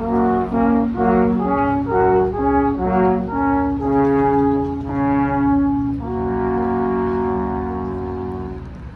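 Three alphorns playing together: a lively run of short notes in harmony, then one long held chord from about six seconds in that fades away near the end.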